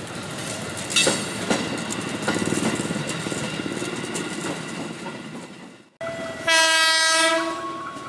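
Electric commuter train running past close by, wheels clacking over rail joints, with a steady whine. After about six seconds a JR 205 series KRL electric train sounds its horn in one loud blast of just under a second.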